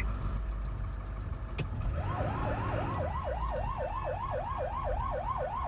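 Emergency-vehicle siren in a fast yelp, its pitch rising and falling about four times a second, starting about two seconds in. It is heard from inside a moving vehicle's cab over a low engine rumble, with a single sharp click before the siren starts.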